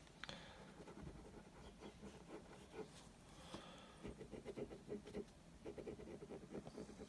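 Faint scratching of a drawing tip on paper: quick, short back-and-forth strokes, coming thickest in the second half, as the eye area is shaded darker.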